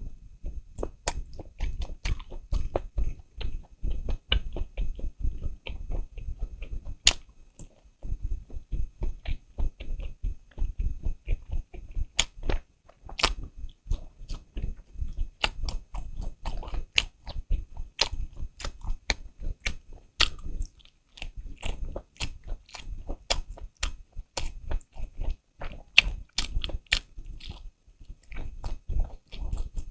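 Close-miked eating: steady chewing and biting, with many sharp wet clicks and crunches from the mouth, briefly pausing twice.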